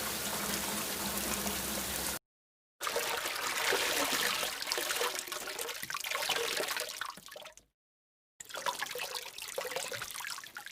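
Three short water sound effects played one after another with clean silent gaps between them. A steady rushing hiss cuts off about two seconds in, then two separate clips of trickling, pouring water each start abruptly and fade out.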